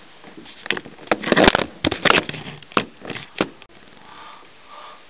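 A quick run of sharp knocks and clicks mixed with rustling for about three seconds, loudest in the middle.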